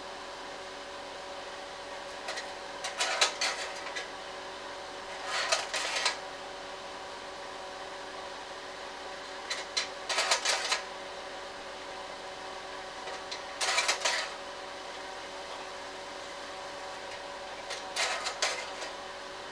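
Slide projector's fan humming steadily, with five short bouts of clicking and clattering from its slide-change mechanism, about every four seconds.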